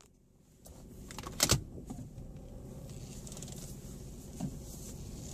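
Car engine running, heard from inside the cabin as a low steady rumble. There are a few handling clicks and knocks, with a sharp click about a second and a half in.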